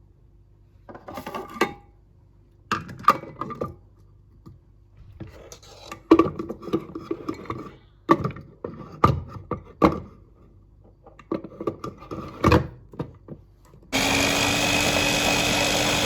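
Household objects being handled: several short runs of knocks and clatters, then, near the end, a loud, steady whirring with a hum from a small electric appliance that starts suddenly and cuts off.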